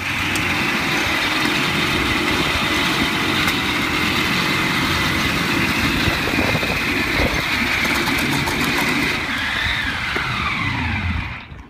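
The Whitelock Tinker Toy's 4200 cc 48-cylinder two-stroke engine, built from sixteen Kawasaki KH250 triples, running loud and steady as the bike moves off. Near the end the revs fall away in a falling pitch.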